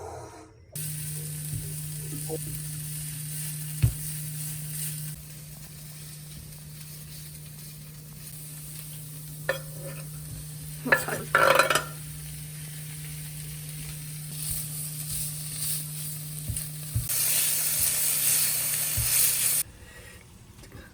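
Food sizzling as it is stir-fried in a frying pan, with a few spatula scrapes in the middle. The sizzling grows louder near the end, then cuts off suddenly.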